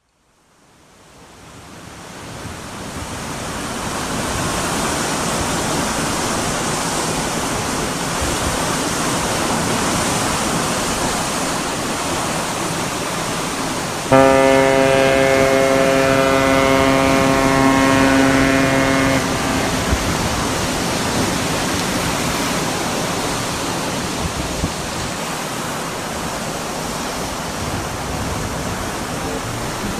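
Steady rushing noise, like surf or harbour water, fades in over the first few seconds. About fourteen seconds in, a ship's horn sounds one long blast of about five seconds, starting suddenly and then dying away.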